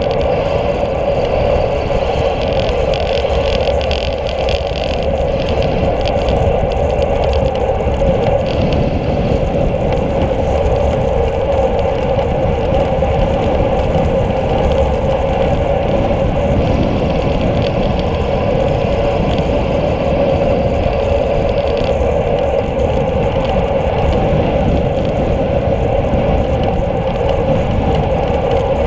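Steady wind rush and tyre noise from a road bicycle rolling along asphalt, picked up by a handlebar-mounted camera, with a constant hum running through it.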